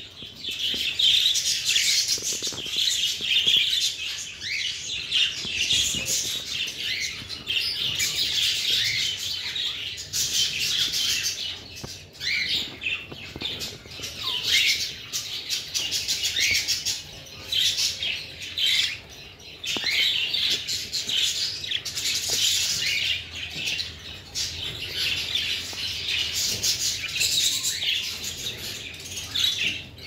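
Budgerigars chirping and chattering without a break, many high calls overlapping.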